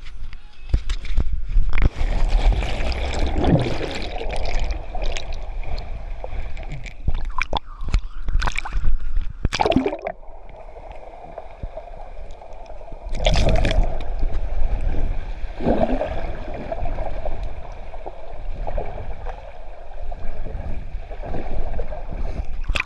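Pool water gurgling and sloshing around a submerged action camera, muffled as heard underwater, with bubbling and the rush of swimmers' strokes swelling and fading.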